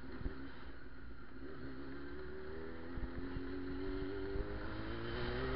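Yamaha R6 inline-four motorcycle engine accelerating, its pitch climbing steadily from about a second and a half in, with a few small knocks along the way.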